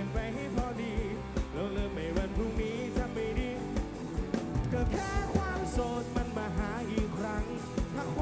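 Live rock band playing through a large concert PA: a steady kick-drum beat, bass and electric guitars, with a singer's voice over them.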